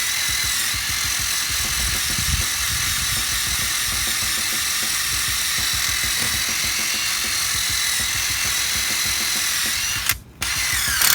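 Electric drill running steadily with a continuous whine, scrubbing rust off the metal; it cuts out briefly near the end.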